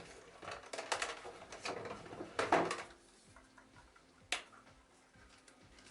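Faint rustling, scraping and knocking as a vacuum cleaner motor is handled and parts are taken off it, with one sharp click about four seconds in.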